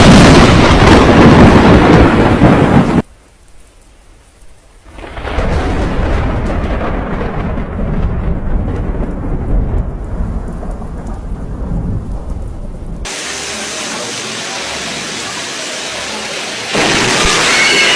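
Thunder: a very loud clap and rumble for about three seconds that cuts off abruptly. After a short lull comes a long deep rolling rumble, then steady rain hiss that swells louder near the end.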